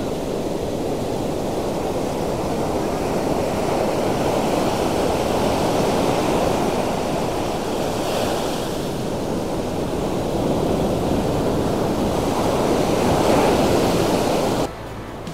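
Surf from a rough sea: large waves breaking and washing up a sandy beach in a steady rush of water. The rush swells about eight seconds in and again near the end, then cuts off suddenly.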